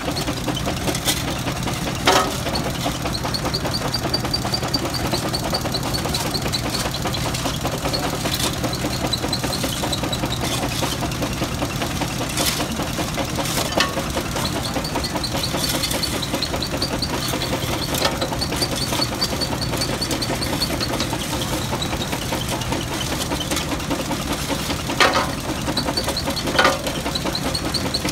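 Belt-driven jaw crusher (Steinbrecher) running and crushing broken brick and stone, with loud sharp cracks several times as pieces break between the jaws. Underneath is the steady running of the engine that drives it.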